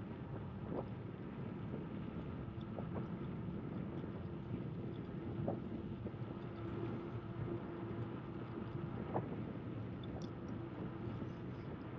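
Steady rushing noise of a bicycle ride, with wind on the microphone and tyres rolling on pavement. A few light clicks and knocks come through, and a faint steady hum sounds for a few seconds in the middle.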